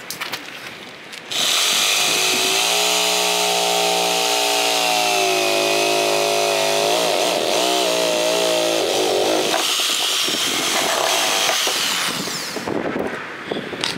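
Corded reciprocating saw starting about a second in and running for about ten seconds as its blade cuts a round hole through a boat's hull. The motor's whine dips and wavers in pitch as the blade loads up in the cut, then the saw stops near the end.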